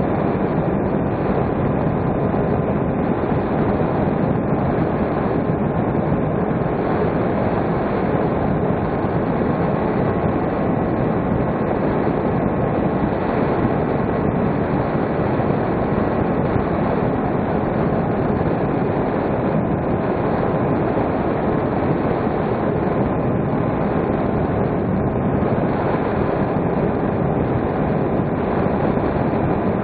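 Steady rush of airflow and propeller noise on the onboard camera of a small electric RC plane in cruising flight, with a faint constant whine from the motor.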